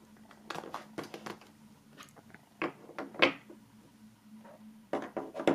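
Light clicks and knocks of small items being set and pressed into the slots of a wooden kit tray, a box of rolling papers among them, with firmer knocks about three seconds in and near the end.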